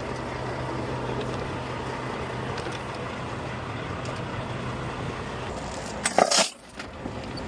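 Truck engine idling with a steady low hum; about six seconds in, a brief loud metallic clatter.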